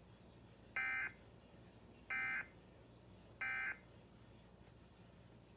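Emergency Alert System end-of-message signal: three short identical bursts of buzzy digital data tones, about a second apart, marking the close of the alert broadcast.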